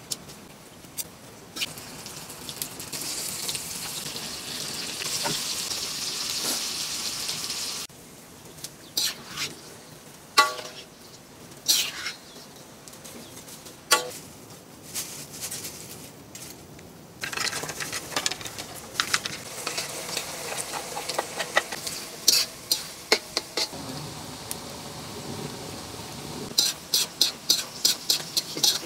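Hot oil sizzling as strips of banana blossom deep-fry in a steel wok, while a slotted steel spatula scrapes and clinks against the wok and a wire-mesh strainer as the fried pieces are scooped out. The sizzling drops away for a while in the middle and comes back, and a quick run of metal clinks comes near the end.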